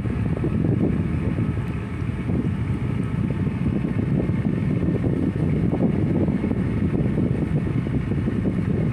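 Steady low rumble of wind on the microphone mixed with the drone of a boat's engine, with no distinct events.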